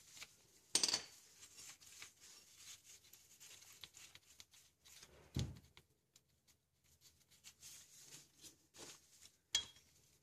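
Ratchet with a hex bit socket on the fill plug of a BMW E30 rear differential, loosening it: faint scattered metallic clicks and clinks. There is a sharper clink about a second in, a dull knock around the middle, and another clink near the end.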